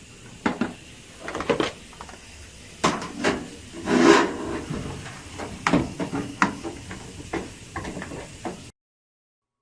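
Plastic dryer lint screen filter being handled and slid into its slot in the dryer: a series of irregular knocks and clicks with short plastic scrapes, cutting off suddenly near the end.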